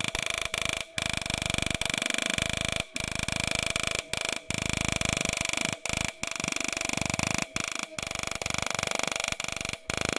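Patmark portable dot peen marker hammering its stylus rapidly into polished stainless steel, a continuous buzzing rattle broken by short pauses every second or so as it moves between characters. A steady high ringing sits over the rattle.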